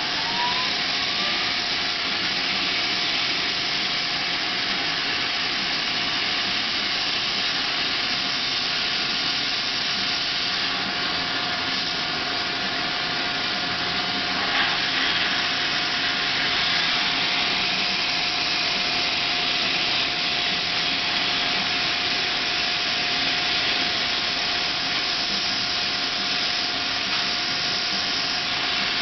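Steady rush of air in a spray paint booth, from the booth's ventilation and an air spray gun laying on base coat. A steady whine runs through it, and it swells slightly about halfway through.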